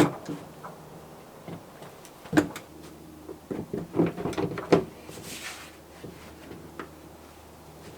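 Irregular knocks and clunks of wood and metal, loudest around the middle, with a brief hiss just after, over a faint steady low hum.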